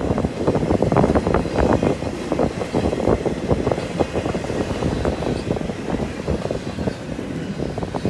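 Double-stack intermodal container well cars rolling past: a steady rumble of steel wheels on the rails, full of rapid, irregular clattering and knocking.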